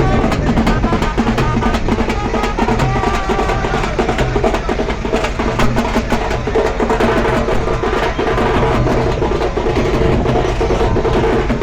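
Loud music carried by fast, dense drumming, with some held melodic tones underneath.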